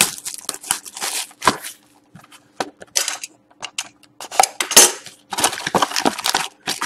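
Plastic shrink-wrap crinkling and crackling as it is peeled off a sealed trading-card box, then a utility knife cutting into the box and the cardboard lid being opened: a run of short, sharp crackles and scrapes, busiest in the second half.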